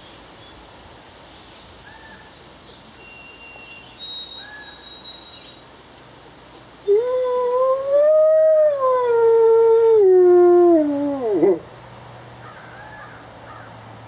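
A wolf howling: one long, loud howl of about five seconds that rises in pitch, then falls in steps and drops off sharply at the end.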